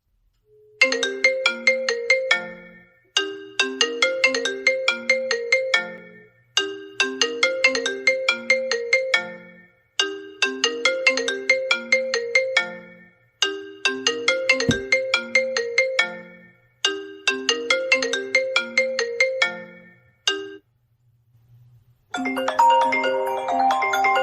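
iPhone 13 Pro ringtone playing: a short melody of quick notes that steps down in pitch, repeated six times with brief gaps. About 22 seconds in, a different, busier tune starts.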